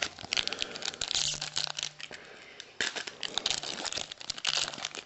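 Plastic wrapper of a trading-card pack crinkling as it is handled, in two spells, the second starting a little under halfway through.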